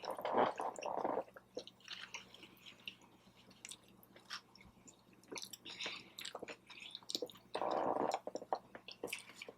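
A person chewing food close to the microphone, with wet mouth clicks and smacks and two denser stretches of chewing, one near the start and one about eight seconds in.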